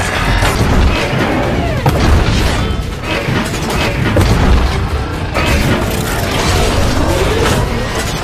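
Dramatic music laid over sci-fi robot transformation sound effects: heavy booms, mechanical clanks and ratcheting, with a couple of sweeping whooshes.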